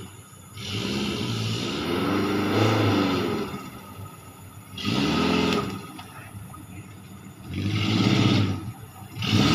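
Off-road 4x4's engine revved in repeated surges as it climbs a muddy trail: a long rev near the start, shorter ones about five and eight seconds in, and another starting just before the end, the pitch rising and falling with each burst of throttle.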